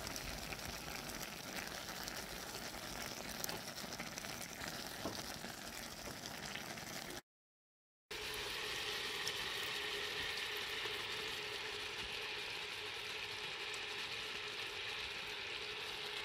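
Fruit simmering in a cooking pan, a steady bubbling hiss: first stewing sloes, then quinces in sugar syrup as sloe liquor is ladled in. The sound breaks off for about a second, seven seconds in.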